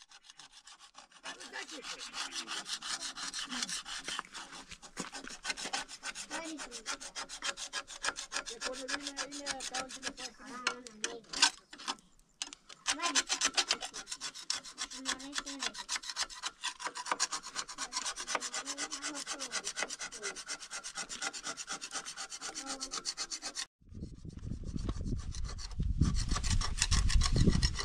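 Fast, steady back-and-forth scraping strokes of a hand tool or abrasive worked over a surface, with a short pause about halfway through. Near the end the scraping stops and gives way to a loud low rumble.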